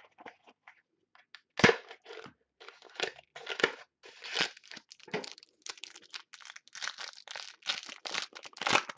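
Foil wrapper of a trading-card pack being torn open and crinkled by hand, a run of short sharp tears and crackles, the loudest about two seconds in.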